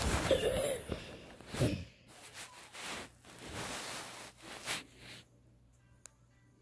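Breathy, sniffing sounds and fabric rustling close to a phone's microphone as a hoodie brushes over it, loudest in the first second and dying away after about five seconds.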